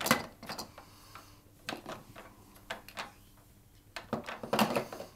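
Hard plastic clicks and clacks from the knobs, rollers and flaps of a Fisher-Price activity cube being worked by hand. They come as a few separate knocks, then a quicker run of clatter near the end.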